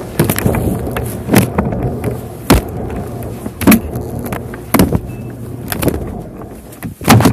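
A cell phone tumbling inside a running clothes dryer, heard from the phone itself: a steady rumble and hum from the turning drum, with a loud bang about once a second as the phone drops and hits the drum.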